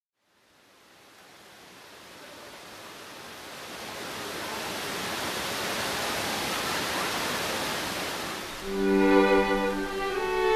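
Water of the Trevi Fountain rushing, fading in from silence and growing steadily louder. About nine seconds in, bowed strings, violin and cello, begin playing long held notes over it.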